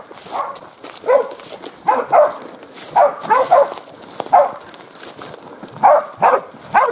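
Border collies barking at a bailed wild boar: short, loud barks, falling in pitch, coming in irregular groups of one to three about a second apart. Steady barking like this is how the dogs hold the boar at bay.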